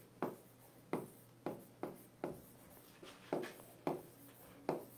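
Handwriting on an interactive whiteboard: a run of short, sharp pen strokes and taps, unevenly spaced at roughly two a second, fairly faint.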